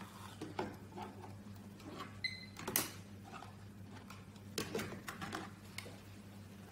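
Small plastic digital thermometers and timers being picked up and set down on a desk: scattered clicks and knocks, the loudest about three seconds in, with a short high beep just before it. A steady low hum runs underneath.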